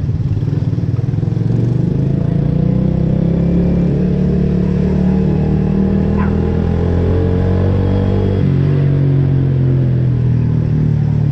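Small motorcycle engine running while riding, its pitch climbing steadily as it accelerates, then dropping suddenly about eight seconds in as it shifts up a gear.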